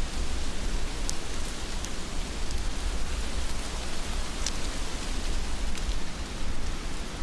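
Heavy rain falling steadily, with a low rumble underneath and a few sharp drop ticks. The loudest tick comes about four and a half seconds in.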